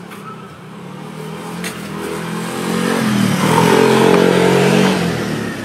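Motor scooter driving past: its engine grows louder as it approaches, is loudest about four seconds in, then fades as it goes away.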